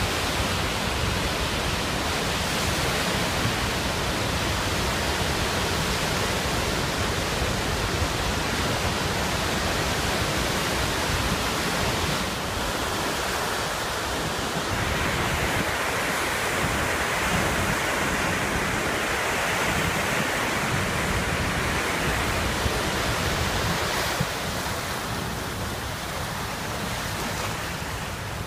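Floodwater rushing through the open spillway gates of Carpenter Dam and churning downstream, a steady loud rush with wind buffeting the microphone.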